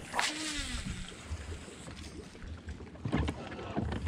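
A cast with a Lew's Speed Spool baitcasting reel: a quick swish as the rod comes forward, with the spool whirring and falling in pitch as it slows. A little after three seconds in there is a short rattle of handling and cranking as the reel is engaged for the retrieve.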